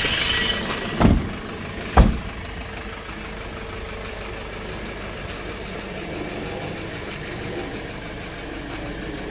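Two door slams about a second apart, then the 2008 Hyundai Porter II's diesel engine idling steadily.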